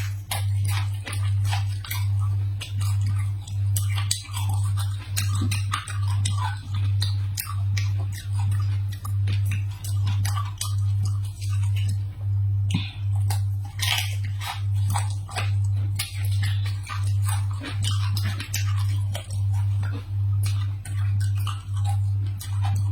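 Close-up chewing and crunching of someone eating a rice-stuffed chili pepper, over background music with a low pulsing beat a little faster than once a second.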